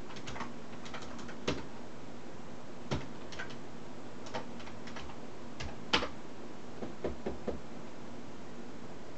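Irregular light clicks and taps, about a dozen of them, with one louder click about six seconds in and a quick run of three soon after, over a faint steady hum.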